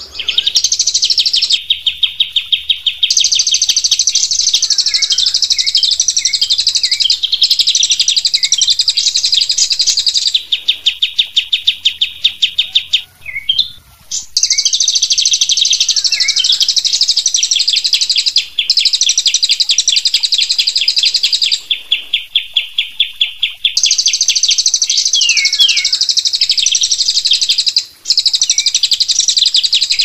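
Recorded songs of a crested jay (cililin) and an olive-winged bulbul (kapas tembak) played together as a training 'master' for cage birds. The sound is a continuous, fast, rattling trill of rapidly repeated high notes, with short lower slurred whistles now and then.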